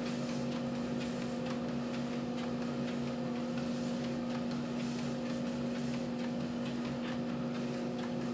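Motorized treadmill running steadily with a constant electric hum, while a Bernese Mountain Dog puppy's paws tick faintly on the moving belt.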